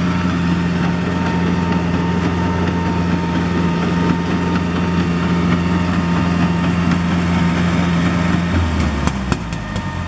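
Concrete pump truck's engine running steadily while the pump and hose are cleaned out. About eight and a half seconds in, the engine slows and its hum drops, followed by a few sharp clicks.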